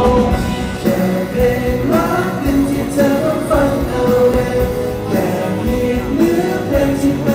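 A group of young male singers performing a pop song live into handheld microphones with backing music, amplified through the arena's sound system.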